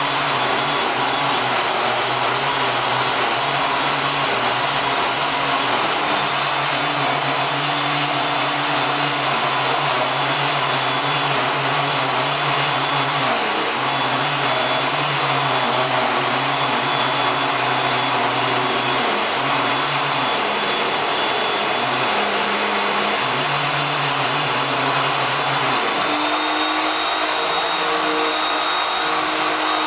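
A metal-cutting power tool running steadily with a whining rush, its low hum dipping and shifting a few times and stepping up in pitch near the end.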